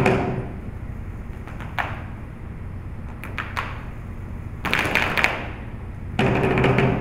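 Boleadoras swung in a malambo display, their weighted ends striking the stage floor. The result is a few single sharp taps and several clusters of rapid strikes, with a whoosh of the whirling cords.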